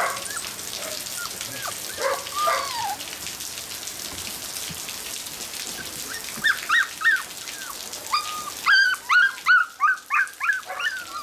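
Border collie puppies crying in short, high-pitched whines and yelps: a few about two seconds in, more around six to seven seconds, then a quick run of them from about eight seconds on.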